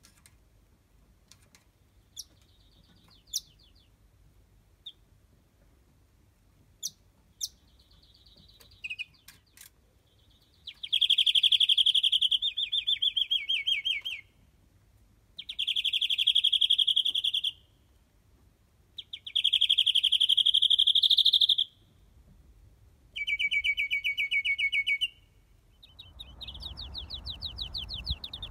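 Caged European greenfinch singing: a few short call notes, then four long, rapid, high trills of two to three seconds each. Near the end a further trill is heard over a low rumble of wind on the microphone.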